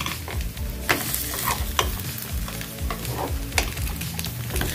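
Mini uttapams sizzling in oil on a nonstick mini-uttapam pan while a steel spoon scrapes under them to flip them, with a handful of sharp scrapes and taps of metal on the pan.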